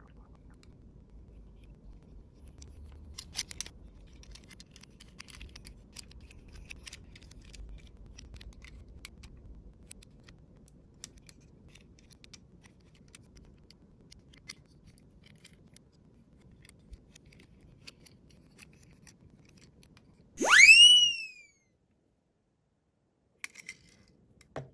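Die-cast toy police car rolling down a slope: a faint low rumble with scattered light clicks that fades out after about ten seconds. About twenty seconds in comes one loud siren whoop sound effect, a tone sweeping sharply upward and dipping at the end, lasting about a second.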